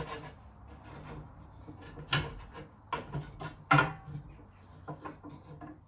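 Metal log guard knocking against the stove's cast iron grate as it is set in place: several sharp knocks, the loudest about two seconds and four seconds in.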